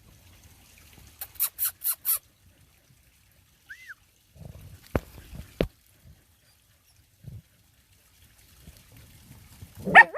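Dogs working at a burrow: five quick scratching strokes about a second in, a short chirp, two sharp clicks midway, then a dog's sharp yelp near the end.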